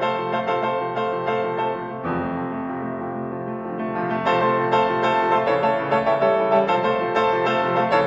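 Steinway D concert grand piano playing quick repeated note figures. About two seconds in, the playing softens to held notes, then the rapid figures return halfway through.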